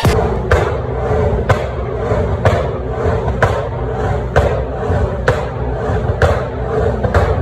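Large crowd clapping in unison, about one clap a second, over a steady low rumble.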